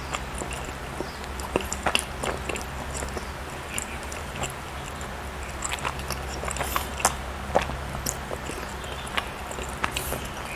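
A person chewing soft baked goods close to the microphone: irregular wet mouth clicks and smacks, a few louder ones among many faint ones.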